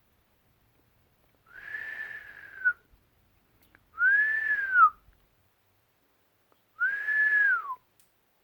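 Pet bird giving three separate whistled cries, each about a second long, rising slightly and then falling off at the end. The owner hears this weird noise as crying.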